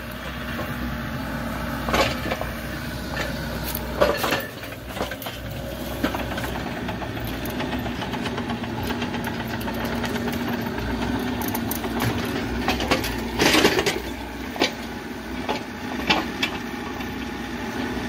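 Mini excavator engine running steadily, with scattered sharp clanks and knocks, the loudest a cluster about three-quarters of the way in, as the machine is driven on a single track, the other one off.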